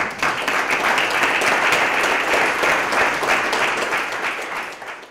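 Audience applauding: dense, steady clapping from a roomful of people that tapers off near the end.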